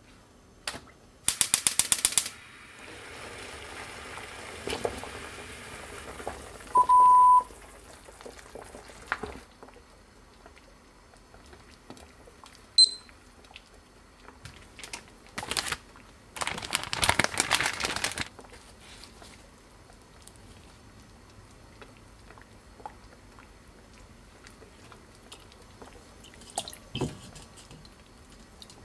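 Gas stove burner lit with a rapid run of igniter clicks, then the flame's steady hiss, with a loud electronic beep about seven seconds in. A short high beep from a digital kitchen timer being set, and later water splashing as salmon pieces are rinsed in a bowl.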